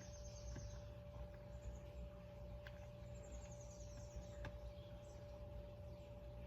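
Faint outdoor background: a steady low rumble with a high-pitched trill that comes and goes, about three seconds in and again near the end. A couple of faint clicks are in between.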